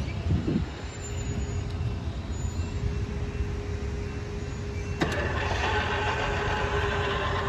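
Train rumbling low as it approaches a grade crossing. About five seconds in comes a sharp clank, and louder rail and wheel noise sets in as it reaches the crossing.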